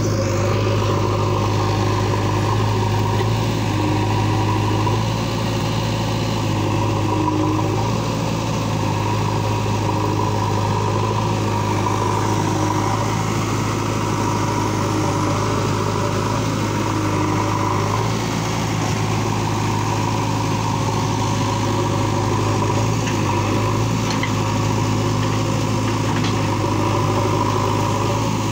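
JCB backhoe loader's diesel engine running steadily while the backhoe arm digs soil, its note shifting slightly as the hydraulics take load.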